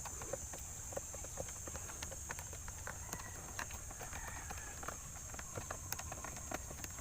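Light, irregular clicks and taps of a test light's probe being touched to the fuses one after another, over a steady high-pitched hiss. No fuse shows power: the truck's main control is getting no feed.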